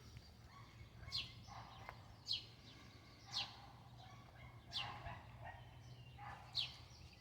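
A distant small dog yapping, faint short barks repeated about once a second, six times.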